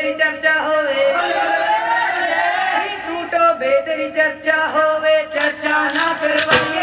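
A man singing a Punjabi boli (folk couplet) for a Malwai giddha in a loud, chanting voice, holding one long note about a second in. Near the end, sharp clacking percussion strikes come in.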